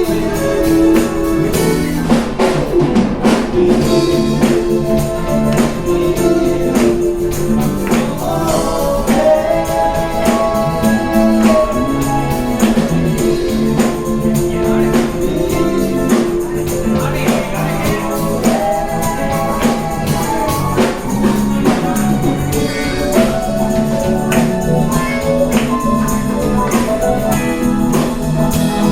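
Live band music: singing and sustained instrument notes over a steady percussion beat.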